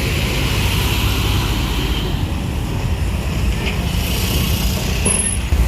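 Large buses' diesel engines running as they drive off a ferry: a steady low rumble with an even hiss over it and no horn sounding.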